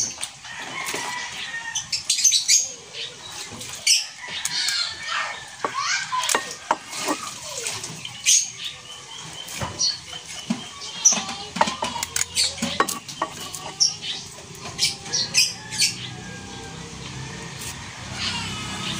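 Kitchen knife scraping and stripping the fibrous skin off moringa (malunggay) pods: a run of quick, uneven scrapes, crackles and small snaps as the strands peel away.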